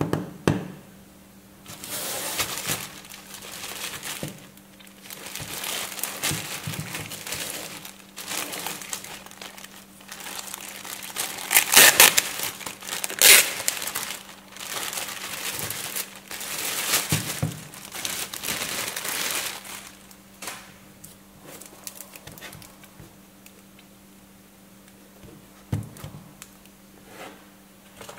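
Clear plastic wrapping crinkling and rustling in irregular bursts as hands handle a taped cardboard parcel, loudest about halfway through. The rustling dies down for the last several seconds, with a single knock near the end.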